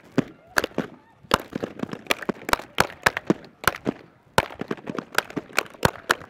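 A quick, irregular run of sharp knocks, about four a second with two short pauses, close on a body-worn microphone.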